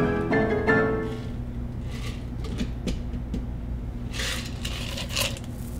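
A shaken cocktail strained from a metal shaker tin through a Hawthorne strainer into a glass of crushed ice, with two short noisy pours near the end as the glass is topped up. Plucked-string background music stops about a second in.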